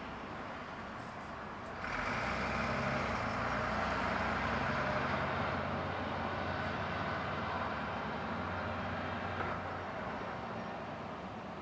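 Heavy vehicle's engine running on a nearby road, rising suddenly about two seconds in, holding steady and fading near the end, over a steady outdoor background hum.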